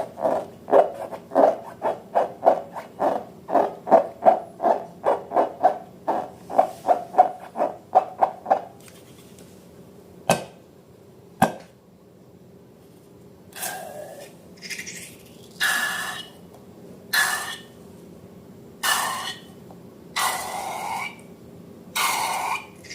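Slime being worked by hand, with rhythmic squelching strokes about three a second for the first eight seconds or so. Then come two sharp clicks and a run of longer squeaky, hissing bursts.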